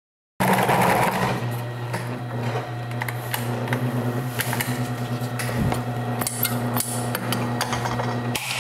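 Industrial sewing machine stitching along the edge of a foam-backed upholstery panel: a steady motor hum with the clatter of the needle mechanism. The hum cuts off near the end.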